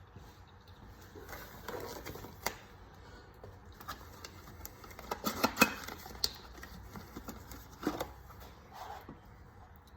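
Scattered clicks and light knocks of tools and parts being handled, with a louder cluster about five to six seconds in and another knock near eight seconds.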